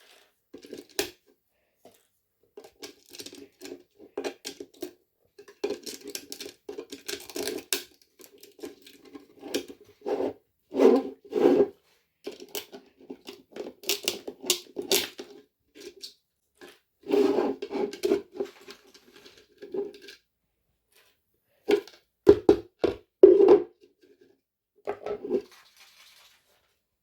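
Intermittent scraping and rustling handling noises in uneven bursts, with a few sharp knocks.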